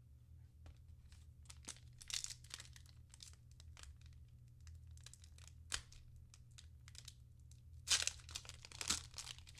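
Trading-card pack wrapper crinkling and being torn open, scattered crackles at first and louder, denser tearing near the end.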